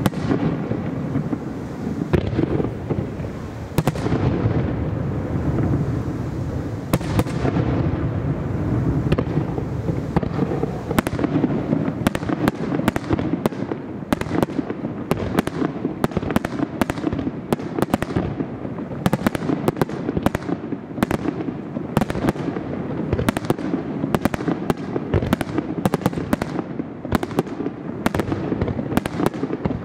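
Aerial fireworks display: shells bursting one after another, with sharp bangs over a continuous low rumble. The bangs come much faster from about a third of the way in.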